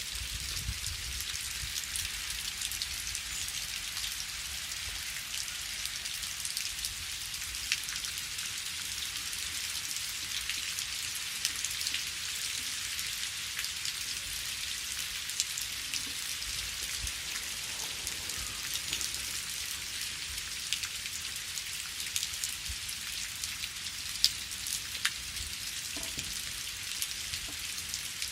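Steady rain falling, a continuous hiss of drops with individual patters standing out, and a few louder drop hits near the end.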